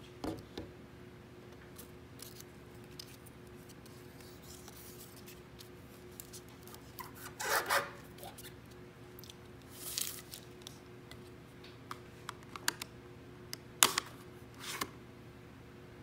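Paper straw wrapper rustling and tearing as a straw is unwrapped, among scattered light clicks of handling, then a sharp click near the end as the straw is pushed through the plastic cup lid.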